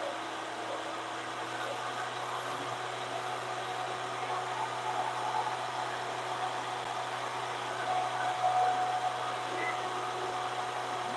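VEVOR 13-inch benchtop thickness planer running steadily with a board being fed through it. The sound swells a little about eight seconds in.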